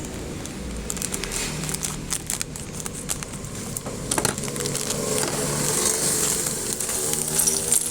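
Toy construction pieces and their plastic packaging being handled: crinkling, with an irregular scatter of small clicks and rattles.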